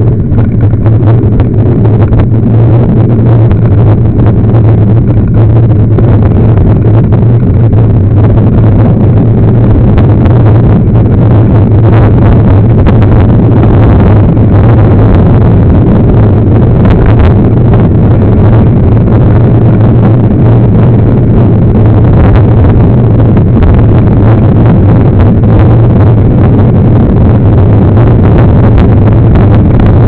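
Loud, steady low rumble of wind buffeting and tyre noise on a bike-mounted camera's microphone while a mountain bike rolls along a dirt road.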